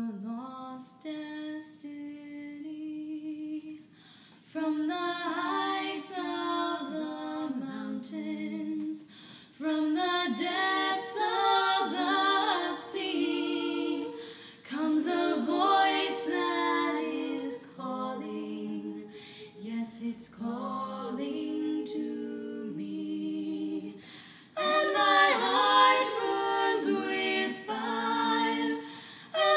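Unaccompanied vocal music: several voices singing together in slow, sustained phrases, a female voice prominent. It is quieter for the first few seconds, grows fuller about four seconds in, and swells louder again near the end.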